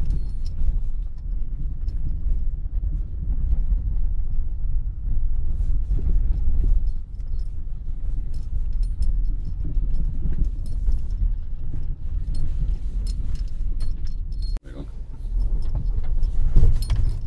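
Road noise inside a car on a rough, potholed gravel track: a steady low rumble of engine and tyres with scattered clicks and rattles. The sound breaks off briefly near the end and then resumes.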